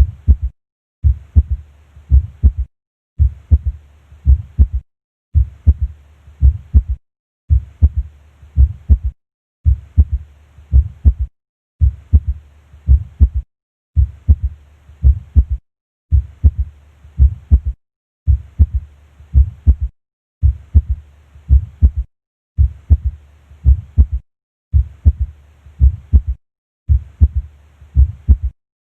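Heart sounds auscultated at the cardiac apex: low-pitched beats carrying a physiological third heart sound (S3), a normal finding rather than a sign of disease. A short recording is repeated about every two seconds, with a brief silent gap between repeats.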